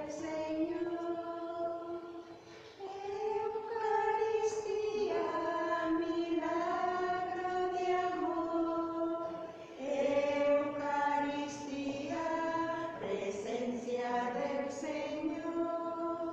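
Voices singing a slow communion hymn, long held notes in phrases broken by short pauses.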